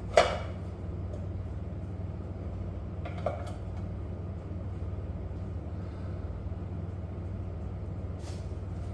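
Metal tools and engine parts clanking while a Harley-Davidson Panhead's top end is worked on: one sharp clank right at the start and a smaller one about three seconds in, over a steady low hum.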